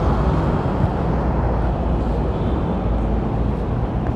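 Steady wind rush on the microphone and rolling noise from a bicycle being ridden along a paved sidewalk, with city traffic mixed in.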